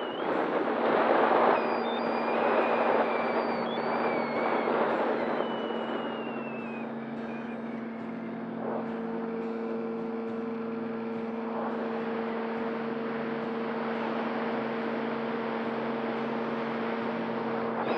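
Electric motor and propeller of a Cessna 170 radio-control model plane, running on a 4S lipo battery: a high whine that slides down and up in pitch as the throttle changes, with steady lower hums. A rushing noise of moving air surges in the first few seconds.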